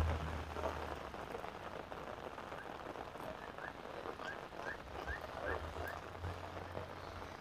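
Heavy rain falling steadily on a wet road and pavement. About three to six seconds in, a frog calls with a run of short rising chirps. A low rumble runs through the second half.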